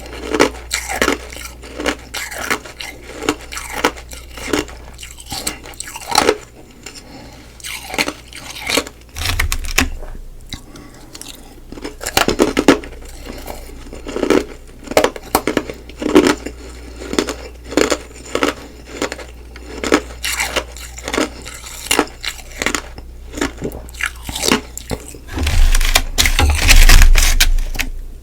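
Close-miked chewing and crunching of humidifier frost ice: a quick, irregular run of crisp bites and crunches, with a louder, longer crunch near the end.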